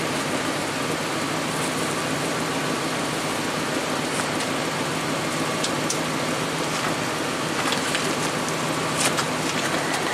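Steady outdoor background hiss with a few light clicks and taps.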